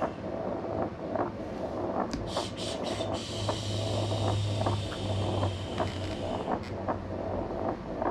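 Steady machine hum and hiss, its low hum strongest in the middle, with faint ticks and rustles from hands settling a baby in a blanket-lined wicker basket.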